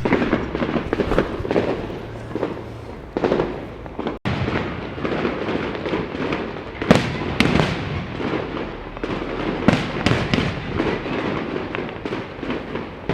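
Fireworks display going off: a steady run of bangs and crackles, with sharper, louder bangs about seven seconds in and again around ten seconds.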